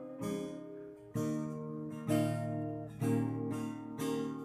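Acoustic guitar strummed, about five chords one a second apart, each left to ring.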